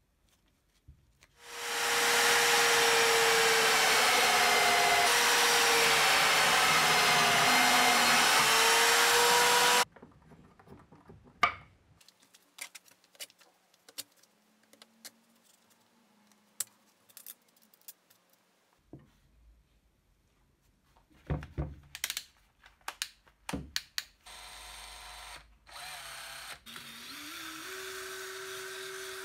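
A power tool runs loudly for about eight seconds, its pitch wavering as the load changes, then cuts off. Small clicks and knocks follow as wooden discs, washers and nuts are handled. Near the end a cordless drill spins up a homemade wooden drum sander, its pitch rising and then holding steady.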